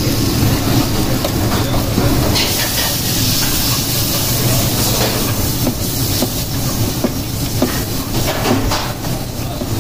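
Penne in red sauce sizzling in a pan over a steady low kitchen rumble, with scattered light clinks of a spoon against the pan.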